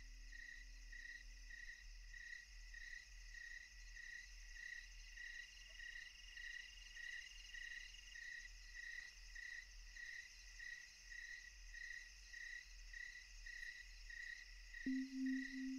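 Crickets chirping steadily, about two chirps a second, faint. Near the end a low bell-like tone is struck once and rings on with a slow waver.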